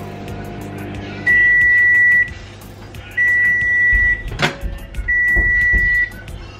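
Microwave oven humming as it runs, then stopping about a second in and giving three long beeps to signal the end of its cycle. A sharp click between the second and third beeps is the door being opened.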